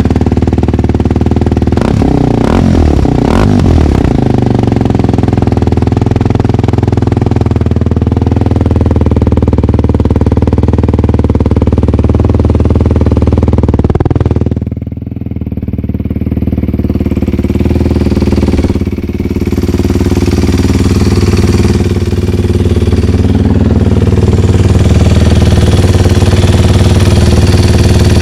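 Kawasaki KLX230's single-cylinder four-stroke engine running through an aftermarket Triton exhaust. It is revved up and down a few times about two to four seconds in, then settles to a steady idle.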